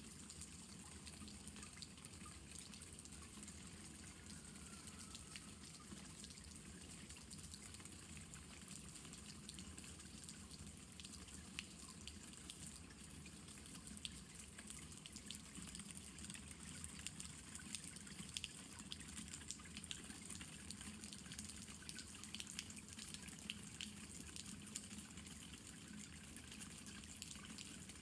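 Faint, steady light rain, with many separate drops dripping and ticking.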